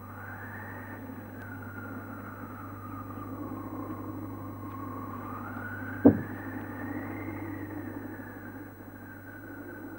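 Old TV soundtrack: a thin wailing tone that slides slowly up and down over a steady low hum, with one sharp, heavy thud about six seconds in.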